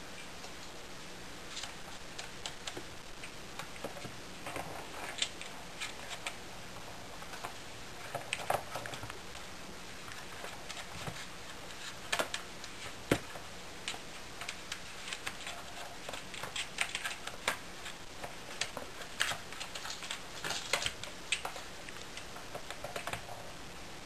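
Irregular light plastic clicks and taps from kittens batting a ball around a plastic circular ball-track cat toy, with paws scuffing on the toy and the plastic-covered floor. The clicks come in scattered clusters, with one sharper click a little past halfway.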